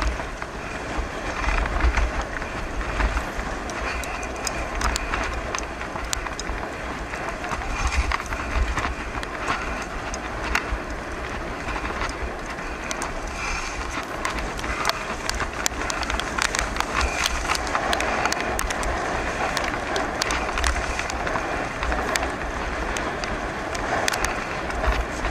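Bicycle tyres rolling fast over a wet dirt-and-gravel track, with frequent small clicks and rattles from grit and the bike, under a gusty low rumble of wind on the microphone.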